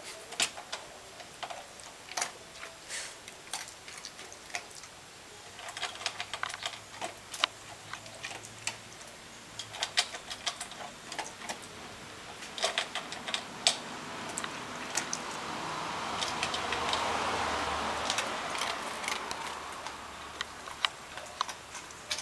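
Irregular clicks, taps and scratches from a golden retriever puppy's claws on a plastic tub. A soft rushing noise swells and fades in the second half.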